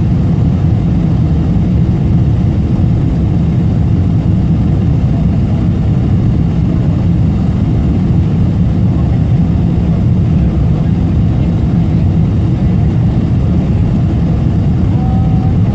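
A jet airliner's engine and air noise: a loud, steady low rumble that neither rises nor falls.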